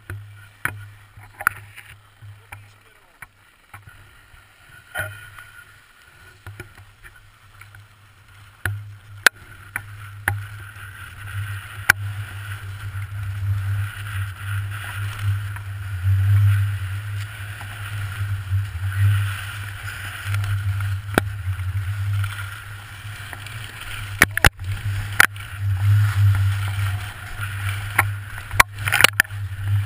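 Skis sliding and scraping over packed snow on a downhill run, with wind rumbling on a GoPro camera's microphone. It grows louder about halfway through, and there are scattered sharp knocks.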